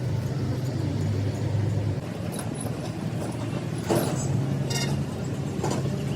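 An engine running steadily, its low hum shifting slightly in pitch about two seconds in, with a few sharp metallic knocks near the end.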